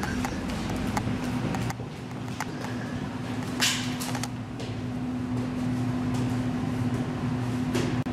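A steady low hum with a few light knocks and shuffles over it, and one short rustle about three and a half seconds in.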